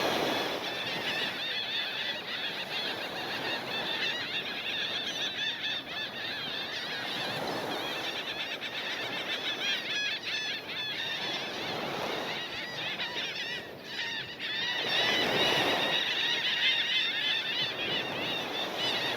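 A flock of laughing gulls calling over one another, a continuous chatter of many short, high, squealing calls.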